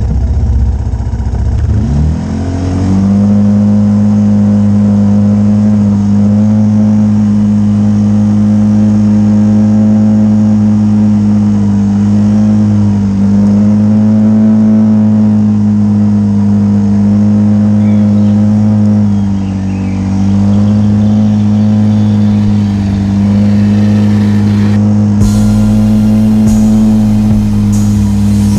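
An ATV engine revs up about two seconds in and is then held at a steady high speed, dipping slightly every few seconds. A hiss with scattered clicks joins near the end.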